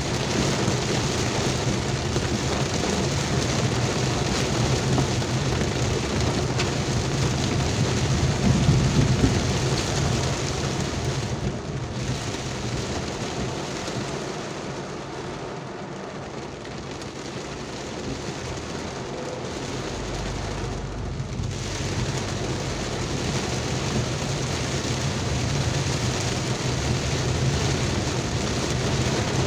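Heavy rain falling, a dense steady hiss, with a low steady hum underneath. It eases a little around the middle, then builds again.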